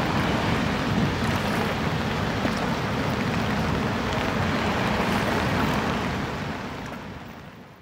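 Steady rushing noise of muddy floodwater with rain and wind, fading out over the last two seconds.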